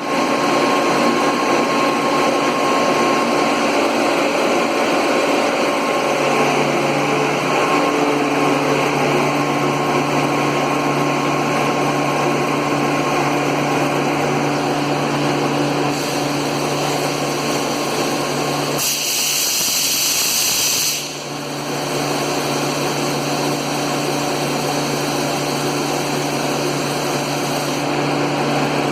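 Rotary screw air compressor running with a steady hum that steps up in pitch about six seconds in. Roughly two-thirds of the way through comes a loud hiss of air lasting about two seconds, after which the running sound briefly drops and then settles again.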